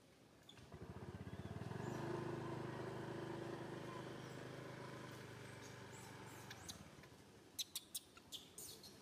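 A vehicle engine passing, a low pulsing hum that swells about a second in and fades away by about seven seconds. Near the end come several short, sharp high chirps.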